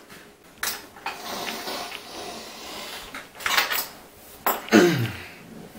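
Handling noise on a kitchen counter: scattered knocks and clinks of dishes and cutlery with rustling, and a short sound falling in pitch near the end.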